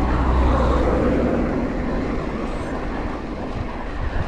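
Steady wind rumble on the microphone of a camera riding on a road bike in motion on asphalt, with a swell of broader road noise in the first second or two.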